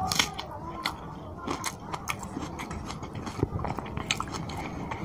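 A man chewing a mouthful of rice and fish curry eaten by hand, with irregular wet smacks and clicks of the mouth.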